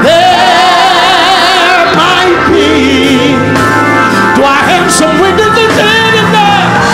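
A man singing a gospel song into a microphone, holding long notes with a wide vibrato, over sustained Hammond organ accompaniment.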